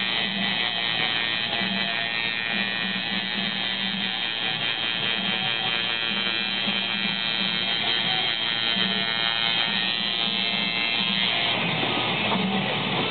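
Tattoo machine buzzing steadily as it works ink into skin, with guitar music underneath; about eleven and a half seconds in, the buzz stops and the music carries on.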